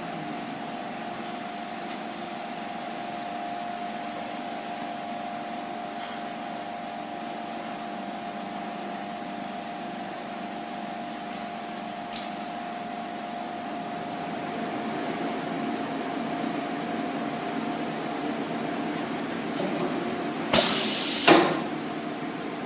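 Semi-automatic PET blow molding machine running: the preform heating oven hums steadily with a fixed whine, and a single sharp click sounds about halfway through. Near the end come two short, loud blasts of compressed air from the pneumatic blowing unit, about two-thirds of a second apart.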